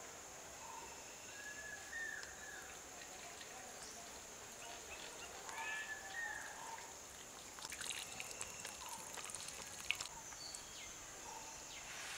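Outdoor ambience: birds calling now and then over a steady high insect drone, with a run of faint crackles and clicks about eight to ten seconds in.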